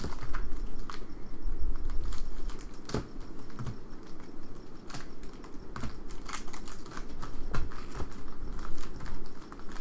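Foil-wrapped hockey card packs (2013-14 Panini Rookie Anthology) being handled and sorted into piles: a quick run of wrapper crinkles and packs clicking and tapping against each other and the table.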